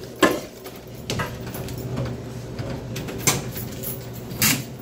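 Metal clunks and knocks as a canned-drink vending machine's front door is unlocked and swung open, the sharpest about a quarter second in and three more spread through the rest, over a steady low hum.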